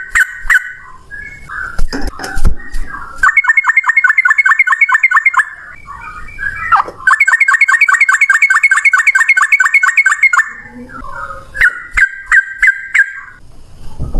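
Yellow-vented bulbul (trucukan) singing loudly. Short chirps are broken by two long, fast runs of the same sharp note repeated about eight times a second, the rolling 'ropel' that keepers prize, beginning about three seconds in and again about seven seconds in.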